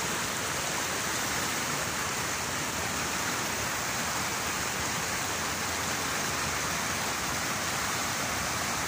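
Floodwater pouring fast over a road edge, a steady rush of strong moving water.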